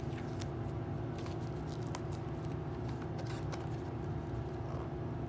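Fingers picking and scratching at the plastic shrink-wrap seal of a VHS tape case: scattered light crinkles and clicks, over a steady background hum.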